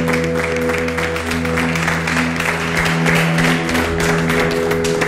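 A group of people applauding over background music with long held chords.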